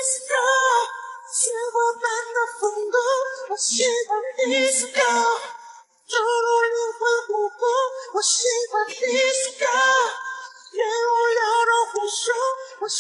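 A high voice singing a melody with words, unaccompanied, with a short break about six seconds in.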